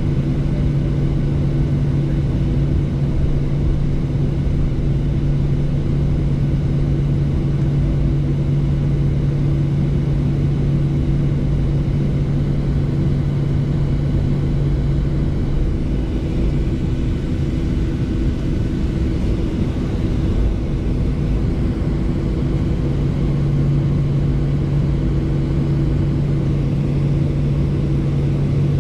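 Airliner's turbofan engines at taxi idle, heard inside the cabin: a steady low rumble with a droning hum. The lowest part of the hum drops away for several seconds past the middle and then comes back.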